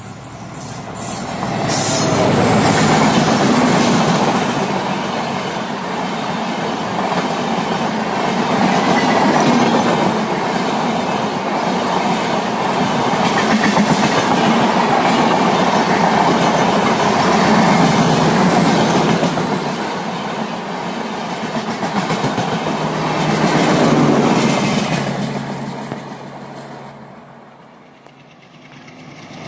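A Humsafar Express passenger train hauled by a WDP4D diesel locomotive passes at speed. The locomotive comes up and goes by over the first few seconds. The coaches' wheels then clatter over the rail joints in a long steady run, and the sound fades away near the end.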